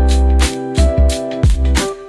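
Background music: a keyboard-led tune over a bass line with a steady drum beat.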